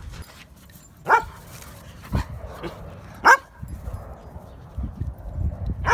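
Poodle barking: three sharp single barks about a second apart.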